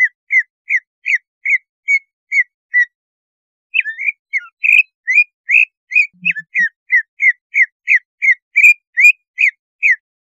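Cucak ijo (green leafbird) calling: a string of short, sharp whistled notes at about two to three a second, pausing for about a second near three seconds in and then coming back faster. It is the agitated call played as a 'pancingan' to rouse other cucak ijo into aggression.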